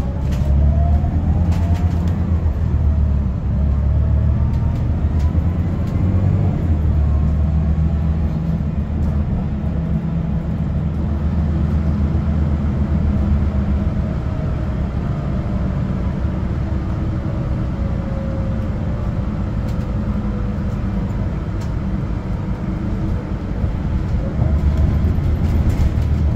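Mercedes-Benz OC500LE city bus under way, heard from inside the cabin: its 12-litre six-cylinder CNG engine gives a steady low rumble. A whine rises in pitch in the first couple of seconds and another falls away around the middle. There are a few short knocks and rattles.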